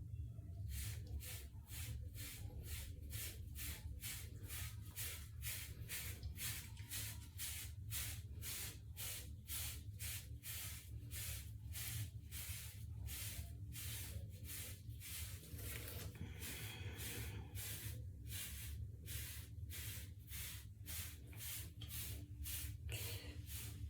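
Hair brush bristles swept repeatedly through hair in a waves brushing session, a steady run of swishes at about two strokes a second.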